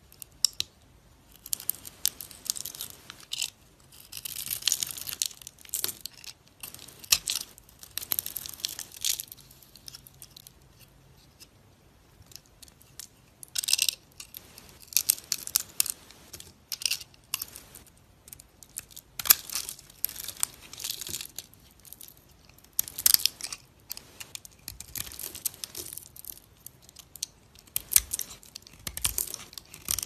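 Snap-off utility knife blade scraping and shaving into a glitter-coated bar of soap: a run of scraping, crackling cuts in irregular bursts with short pauses between.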